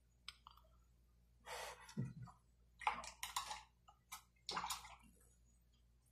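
A paintbrush swished in a jar of rinse water in three short splashy bursts, with a few light taps between them.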